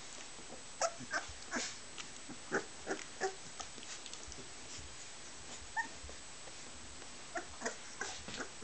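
Boxer puppies making short squeaks and whimpers, bunched in the first few seconds and again near the end, with one brief high squeak in between.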